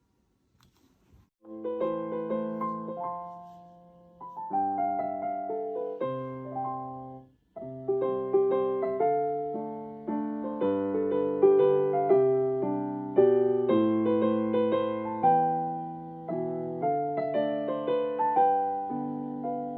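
Piano playing a gentle melody over chords, each note ringing and fading. It starts about a second and a half in, after a brief silence.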